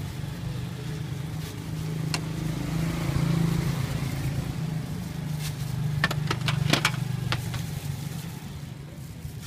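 A vehicle engine runs close by, its low hum swelling about three seconds in and easing off toward the end. A quick cluster of sharp clicks and taps comes about six to seven seconds in.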